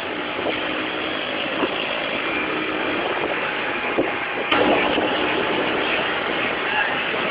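Motorcycle engine running steadily while riding, with road and wind noise. There is a sharp click about four and a half seconds in, after which it is a little louder.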